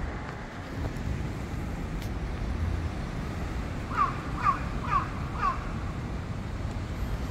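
Crow cawing four times in quick succession, about half a second apart, starting about four seconds in, each caw a harsh falling call. A steady low traffic rumble runs underneath.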